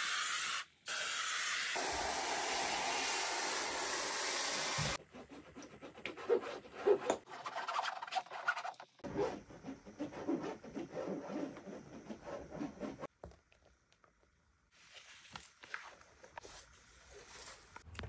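Hand pump pressure sprayer hissing as it sprays paint for about five seconds, with a short break about a second in. After that come quieter scratchy rubbing and small knocks of paint being worked on a canvas, and near the end the wet rubbing of a small paint roller in thick paint.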